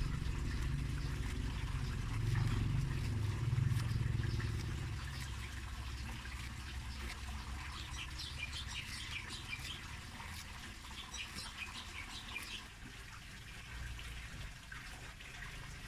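Knife chopping green onion and sawtooth coriander on a wooden chopping board in light taps, over a low rumble that fades after the first few seconds. Birds chirp in two short spells in the second half.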